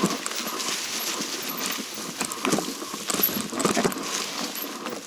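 Mountain bike rattling and clattering over a rough, root-strewn trail: an irregular run of knocks and jangles with a steady hiss of tyres on dirt.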